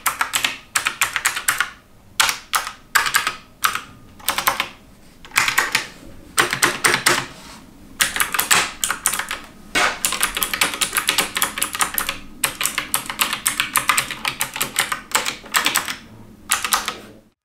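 Xenics Titan Optical V2 mechanical keyboard with Outemu optical blue switches being typed on rapidly: dense flurries of sharp, clicky keystrokes with short pauses between them.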